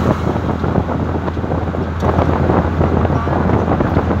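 Steady road and engine noise heard inside a car cabin while cruising: a constant low drone under a dense rumble of tyres and wind.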